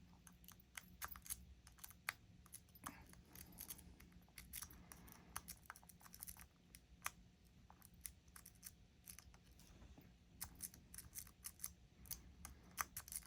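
Faint, irregular clicking and scraping of a lock pick raking the pins of a small lock under tension, the lock still closed.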